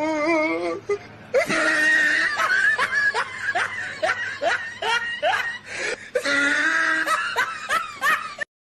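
A person laughing hard and at length, in quick repeated high-pitched peals that break off abruptly just before the end.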